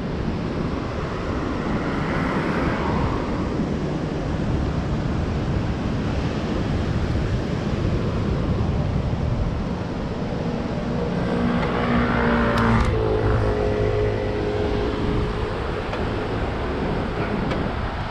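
Road traffic going by under a steady low rumble. About twelve seconds in, a vehicle passes with an engine hum that drops in pitch as it goes by.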